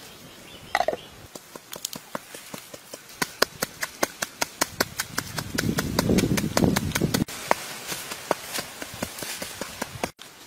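Wooden pestle pounding shredded vegetables and chillies in a mortar: a steady run of sharp knocks, about three or four a second, with a heavier, thicker stretch of pounding around the middle.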